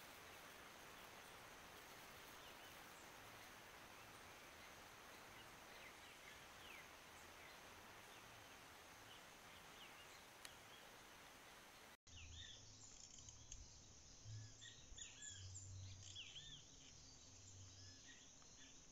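Faint outdoor ambience: a steady hiss with a thin high insect-like tone and a few faint bird chirps. After a cut about twelve seconds in, birds chirp more clearly over low rumbling bumps.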